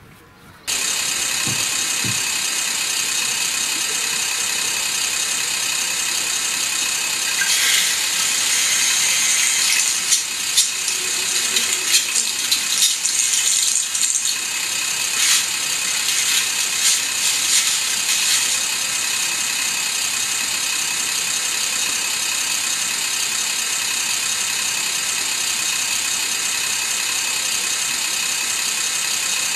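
Sound decoder of a Minitrix VT 98 N-scale railbus playing its diesel railbus engine sound through the model's small loudspeaker while the train stands still. It runs steadily, with a stretch of rattling clatter in the middle.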